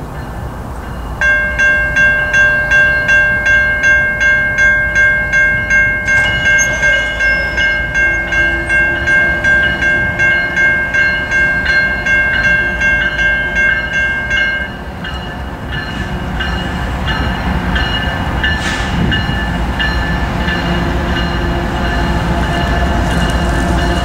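Railroad crossing bell ringing in even strikes about twice a second while the crossing gates lower, stopping about fifteen seconds in. After it comes the steady rumble of an approaching Norfolk Southern freight train.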